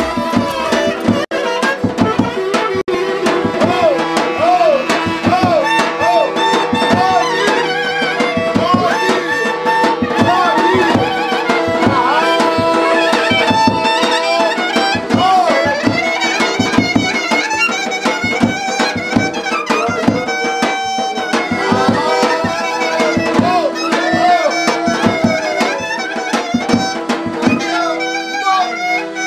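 Instrumental Balkan folk dance music with a steady drum beat and a quickly ornamented melody line.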